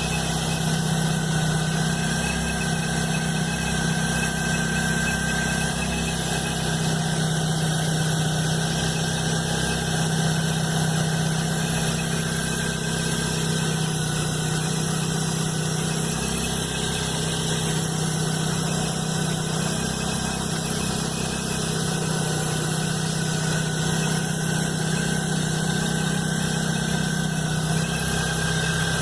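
Chevrolet S10 Blazer engine idling steadily, with a thin, steady high whine above the low engine hum, just after the timing belt and alternator belt were replaced.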